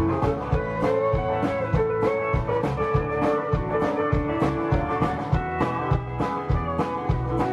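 A live country-rock band playing an instrumental break: a drum kit keeping a steady beat under bass, guitars and a held, sustained lead line.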